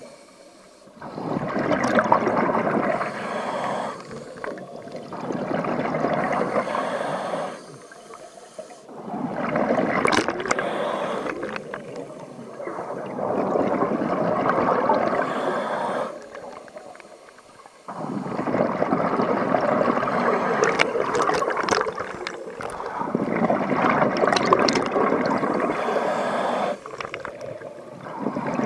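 Scuba diver breathing through a regulator underwater: exhaled bubbles gurgle in stretches of a few seconds, repeating about every four to five seconds with quieter gaps between breaths.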